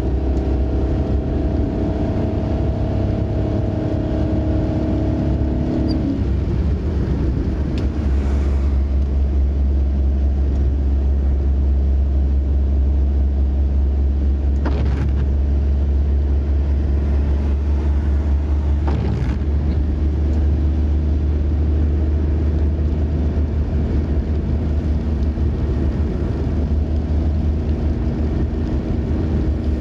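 Car cabin noise while driving on a wet road: a steady low rumble of tyres and engine, with the engine's hum changing pitch about six seconds in. A few brief hissing sounds stand out over the rumble.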